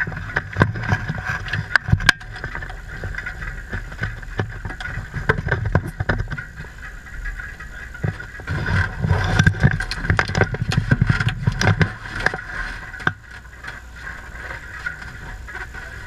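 Knocks, clicks and rustling inside a race car's cockpit as the driver climbs out, busiest about halfway through, over a steady high whine.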